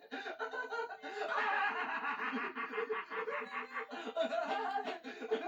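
Cartoon character laughing in a long run of rapid snickers.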